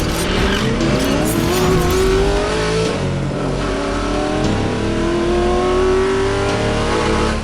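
Car engine accelerating hard, its pitch rising through one long pull, dropping briefly about three seconds in as it shifts gear, then rising through a second pull before cutting off suddenly.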